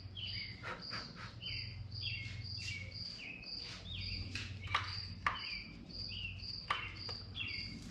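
Birds chirping: a short high note repeating about twice a second, mixed with repeated falling chirps. A few sharp clicks stand out, over a low steady hum.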